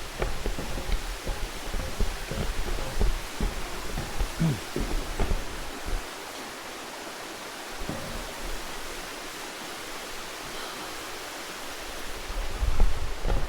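Steady rush of a mountain stream or waterfall. Irregular low thumps and rumbles sit over it for the first half and come back near the end.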